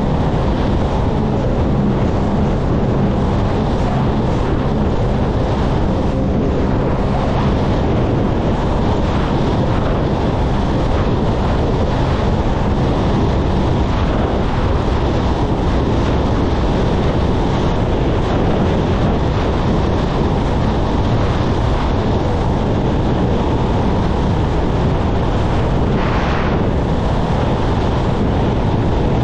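Wind buffeting the microphone on a motorboat running at speed, over the steady rush of its churning wake and the low drone of its engines.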